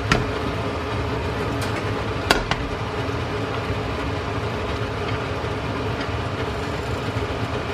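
A steady mechanical hum with a low rumble, and a few light clicks near the start and about two seconds in.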